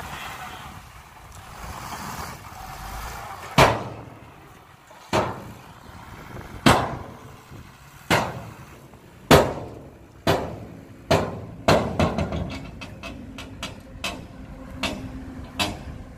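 A dump truck's metal tailgate banging against its raised bed as the truck drives forward over rough ground to shake out the last of the soil, its engine running underneath. The bangs start a few seconds in, about one every second and a half, come closer together, then break into a quick run of lighter clanks.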